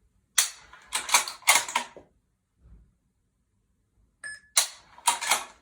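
Rifle being dry-fired and its bolt cycled on dummy rounds: quick metallic clicks and clacks in two clusters, with a brief electronic beep about four seconds in.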